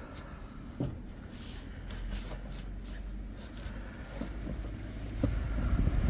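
Cloth rag rubbing over the plastic and metal of a car's engine bay, soft swishes with a couple of light knocks. Low wind rumble on the microphone builds near the end.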